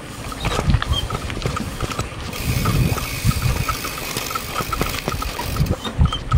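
Bicycle freewheel hub ticking steadily as the bike coasts along a concrete road, over a low, uneven rumble of wind on the microphone.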